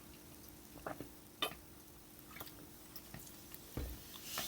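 Scattered light clicks and taps of small tools and parts being handled on a workbench, with a soft thump near the end, over a faint steady hum.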